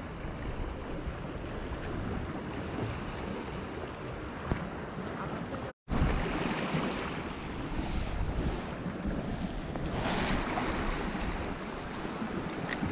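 Waves on a large lake washing against the icy shore, mixed with wind rumbling on the microphone, steady throughout. The sound breaks off for a moment about six seconds in.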